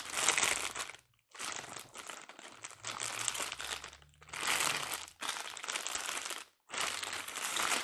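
Plastic packaging crinkling and rustling as it is handled, in four stretches broken by short pauses.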